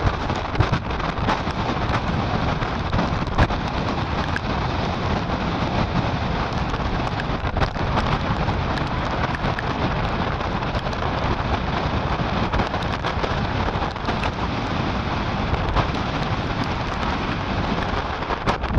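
Typhoon storm noise: gusting wind and rain buffeting the microphone over waves churning in a reef lagoon, a dense rushing roar with constant crackles.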